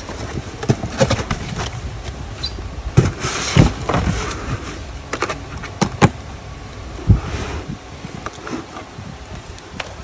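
Unpacking a hard plastic tool case from a cardboard box: cardboard rustling, then a string of knocks and thumps as the case is handled and set down, and clicks as its latches are snapped open, over a low steady rumble.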